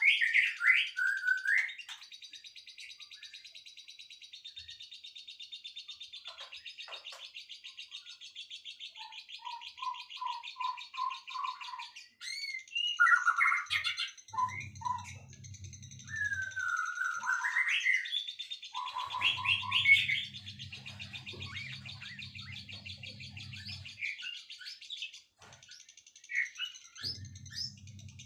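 Songbirds singing: loud whistled slurs and chirps over a steady high-pitched trill, with a run of about eight quick repeated notes about ten seconds in. A low hum comes and goes in the second half.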